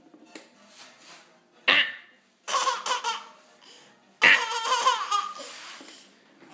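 Baby laughing out loud in several separate bursts, the loudest starting about four seconds in.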